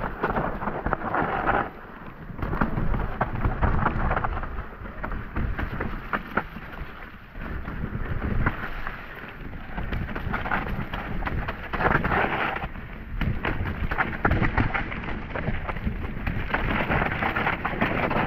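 Mountain bike riding fast down a dirt trail: tyres rumbling over the dirt and roots, with many quick clicks and rattles from the bike over the bumps, the noise surging and easing every second or two.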